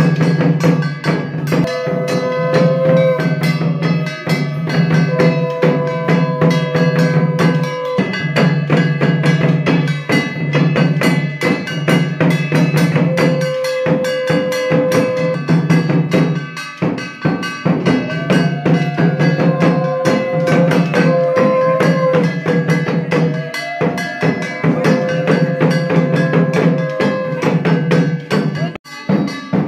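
Puja music: fast, dense drumming and clattering percussion under a steady low drone, with held tones that come and go every couple of seconds.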